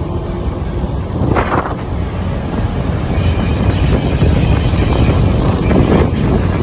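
Scania K410iB double-decker bus driving close by, its engine and road noise a steady low rumble, with wind buffeting the microphone in two short gusts.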